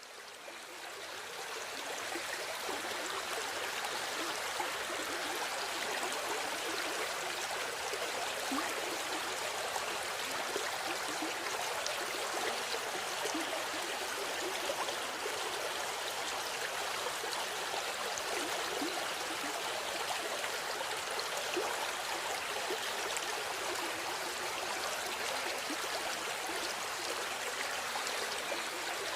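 River water flowing steadily over its bed in a continuous, even rush, fading in over the first couple of seconds.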